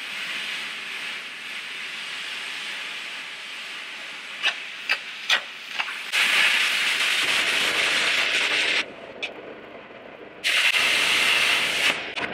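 Hand-held plasma cutter cutting through steel plate: a steady loud hiss, with a few sharp pops about four to six seconds in. The hiss grows louder about six seconds in, drops away for a second or two just before the nine-second mark, then starts again for a second cut.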